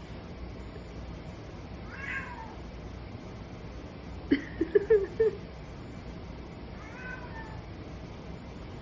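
Hairless cats meowing during a standoff: a falling meow about two seconds in, then a quick run of four or five short, louder calls around four to five seconds in, and another falling meow near seven seconds.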